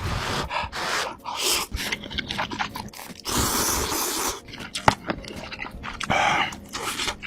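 Close-miked eating sounds: a person slurping and chewing food in irregular bursts, with a long slurp about three seconds in and a shorter one near the end.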